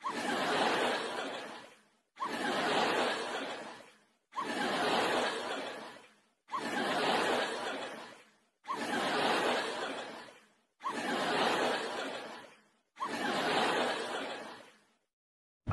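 A short laughter sound effect played seven times over in an even loop, each burst of laughing starting sharply and fading away, about every two seconds.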